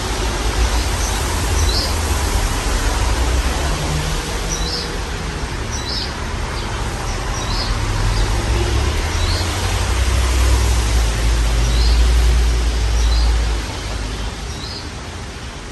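Modern Fan Company Cirrus ceiling fan running, its moving air giving a steady hiss and a wavering low rumble on the microphone that eases near the end. Short high chirps, a small bird's calls, come at irregular intervals.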